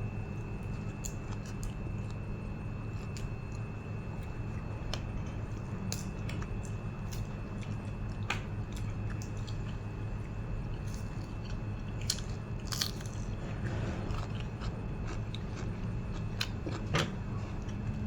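A person chewing and biting food close to the microphone, with scattered small clicks and crunches. A steady low hum and a thin, high steady whine sit underneath.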